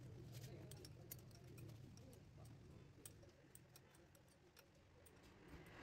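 Near silence with faint, scattered small metallic ticks as the bolts of a Yamaha FZ 25's rear brake caliper are turned in by hand.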